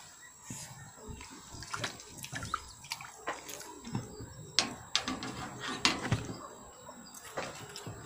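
Crucian carp splashing and slapping at the water's surface, a string of sharp irregular splashes, the loudest about five to six seconds in. This is the thrashing of spawning fish near the bank.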